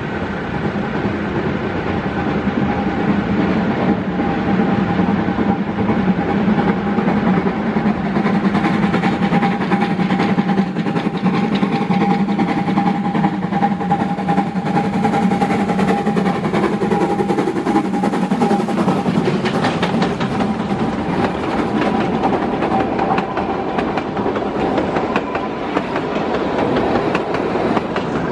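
Narrow-gauge steam train approaching and passing close by, with a steady hum and the coaches' wheels clicking over the rail joints, the clicks growing stronger in the second half as the coaches go past.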